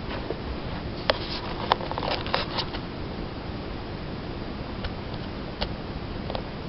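Handling noise: a quick cluster of light clicks and taps in the second and third seconds, then a few single clicks, over a steady background hiss.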